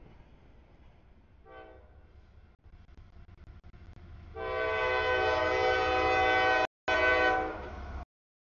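Freight locomotive's multi-chime air horn sounding for a grade crossing: one short blast, then a long loud blast about three seconds later, over the low rumble of the approaching train.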